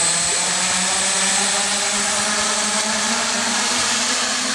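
Electric motors and propellers of a quadrotor drone whirring steadily at hover power, the pitch rising a little near the end as it lifts off.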